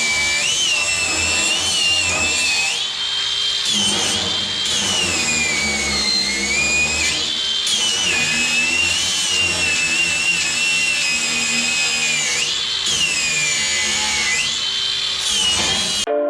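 Electric angle grinder working steel, a loud high whine that sags in pitch several times as it is loaded and climbs back as it frees up, cutting off suddenly near the end.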